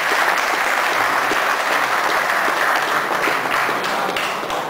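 Audience applauding: many hands clapping in a dense, steady patter, easing off slightly near the end.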